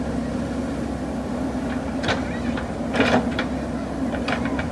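Diesel engine of a JCB backhoe loader running steadily, with a few short knocks and clanks over it: one about two seconds in, the loudest about three seconds in, and a quick cluster near the end.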